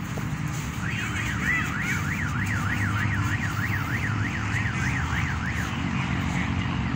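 An electronic siren warbling quickly up and down in pitch, about three to four sweeps a second, starting about a second in and stopping shortly before the end, over a steady low rumble.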